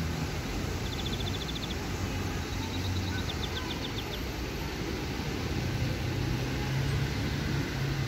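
Steady hum of road traffic, with a small bird giving a rapid high trill twice: briefly about a second in, and again for about a second and a half around three seconds in.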